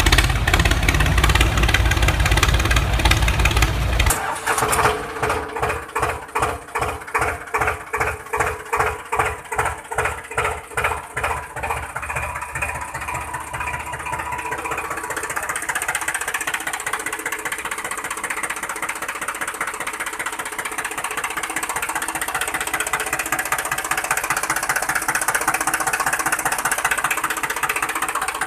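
Tractor engine running, loud and dense at first. About four seconds in it changes to an even chugging of about two beats a second, then settles into a steady run.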